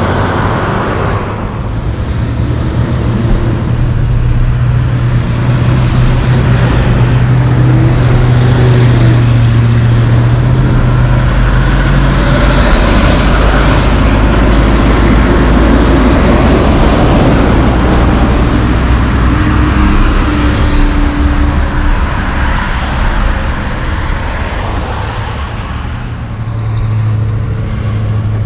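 Heavy diesel tractor-trailer trucks passing close by: a steady low engine drone with tyre and road noise, loudest in the middle stretch and easing off toward the end. A faint high squeal glides briefly about twelve seconds in.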